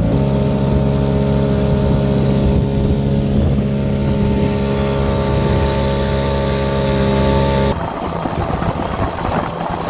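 Small outboard motor on a dinghy running at a steady, unchanging pitch while under way, with water and wind noise. About three-quarters of the way through, the steady engine note gives way abruptly to a rougher, noisier rush.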